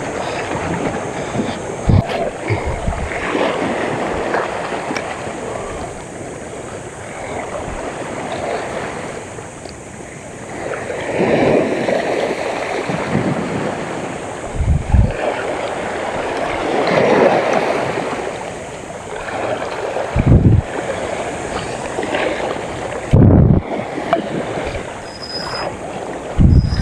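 Sea waves washing in, swelling and ebbing every few seconds, with wind on the microphone and several short low thumps.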